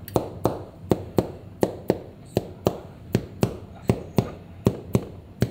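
Rapid, regular clicking, about four sharp clicks a second, steady throughout.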